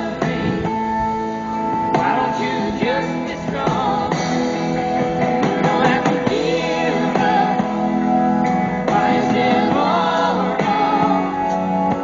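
Background music: a song with singing over held instrumental chords.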